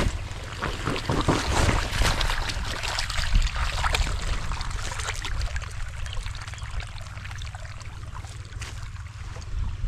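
Wind rumbling on the microphone, with irregular crackling and rustling during the first few seconds, and water trickling from an irrigation hose into the soil.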